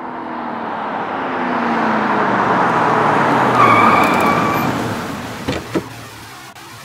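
A car passing by fast: an engine note falls steadily in pitch while the rush of noise swells to a peak and fades away, followed by two short knocks near the end.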